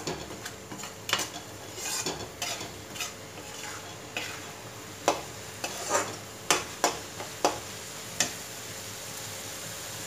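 Steel slotted spoon scraping and knocking against a steel kadhai as a spice masala is stirred while frying in oil, with a steady sizzle underneath. The masala is being roasted until the oil separates. The strokes stop near the end, leaving only the sizzle.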